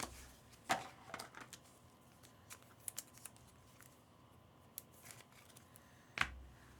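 Faint, scattered clicks and short rustles of trading cards and foil pack wrappers being handled.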